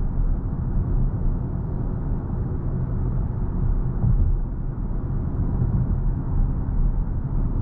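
Steady low road and tyre rumble heard inside the cabin of a BMW i7 electric sedan while it is driven, with no engine note.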